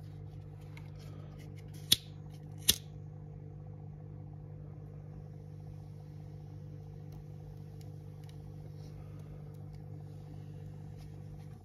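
Two sharp clicks of a disposable lighter being struck, less than a second apart, over a steady low hum.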